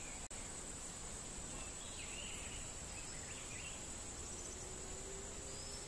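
Natural outdoor ambience: a steady, high insect drone, typical of crickets, over a faint background hiss, with a few faint bird chirps about two to three seconds in.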